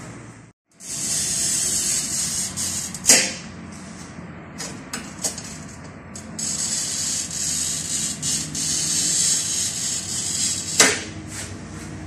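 Glass cutter scoring mirror glass: two runs of high, scratchy hiss as the wheel is drawn across the surface, each ending in a sharp crack, with a few light clicks between them.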